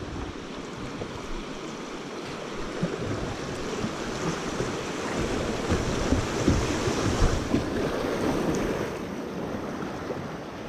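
River water rushing through a small rapid around a kayak's hull, with wind buffeting the microphone. The rush grows louder about halfway through as the kayak runs the white water, then eases near the end.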